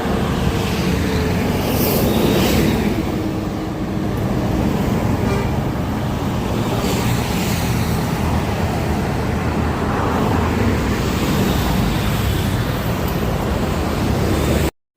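Road traffic passing at a steady, fairly loud level, engine and tyre noise without horns.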